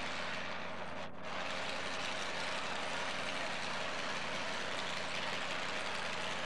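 Two-wheel-drive pulling truck's engine idling steadily at the start line, with a brief dip in the sound about a second in.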